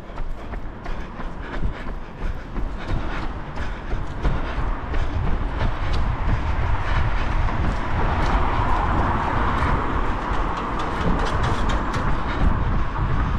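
A runner's footsteps on a wet street, as short irregular clicks over a steady low rumble. A hiss builds from about seven seconds in and stays to the end.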